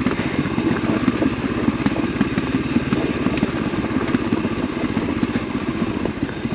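Motorcycle engine running steadily while the bike rides slowly down a steep, rough gravel track, with a rattly clatter from the stones under the tyres.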